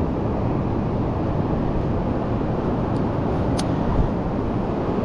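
Steady low rumble of breaking surf and wind on the beach, with a couple of light clicks from fish pliers working a hook out of a perch's mouth.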